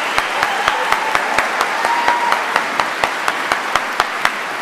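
Audience applauding, many hands clapping steadily with individual sharp claps standing out.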